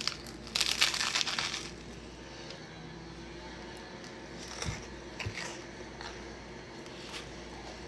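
Biting into a cheesesteak sandwich on a toasted hoagie roll: a loud crunch lasting about a second, then a few quieter chewing sounds.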